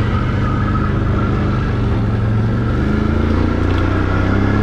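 Can-Am ATV engine pulling steadily up a steep dirt hill climb, rising a little in pitch about three seconds in.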